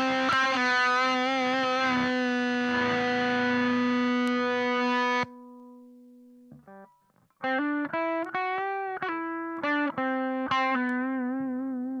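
Electric guitar played through the SAE Effects Beldam germanium-boost/silicon-fuzz pedal into a Frenzel Bassman amp, heard distorted. A held note drops away suddenly about five seconds in. After a short pause a phrase of notes with string bends follows, ending on a held note that slowly fades.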